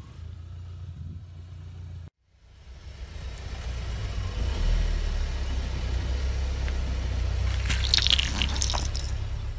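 Car engine running low and steady, cutting out briefly about two seconds in and then building again as the tyre creeps forward. Near the end comes a crackling crunch as the tyre crushes a plastic container of water beads.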